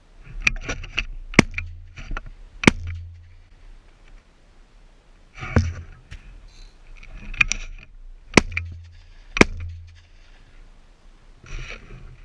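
Twelve-gauge over-and-under shotgun (Lincoln No.2) firing a string of shots, about seven sharp reports spread through several seconds, some coming close together.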